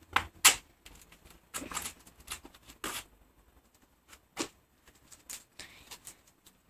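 Irregular scuffs and knocks of shoes and hands against a brick wall as someone scrambles up onto its ledge, the sharpest knock about half a second in.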